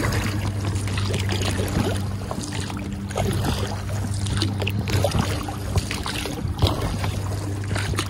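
Oars dipping and splashing as an inflatable dinghy is rowed, with water swishing along the hull, over a steady low hum.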